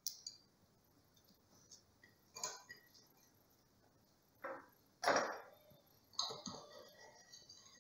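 Tableware handled on a wooden table: a few light clinks and knocks, the loudest about five seconds in, then a knife and fork cutting a rolled pancake against a ceramic plate, a run of small scrapes near the end.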